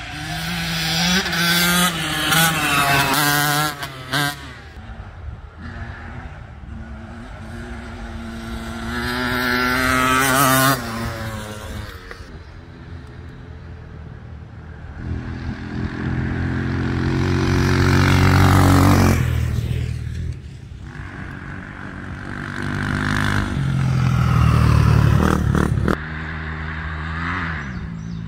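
Off-road dirt bikes racing one after another down a field track at about 40 to 50 mph. Each engine grows louder as the bike approaches, then drops in pitch and fades as it goes past, several times over.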